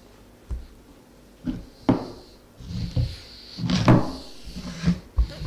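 A carrot being peeled by hand: the blade scraping its skin, with a few irregular knocks and taps from handling it, the loudest about four seconds in.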